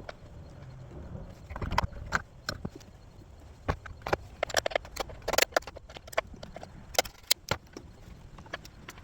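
Irregular clicks and knocks of hand tools and parts being worked loose in a car's engine bay, with a quick cluster of sharp clicks in the middle.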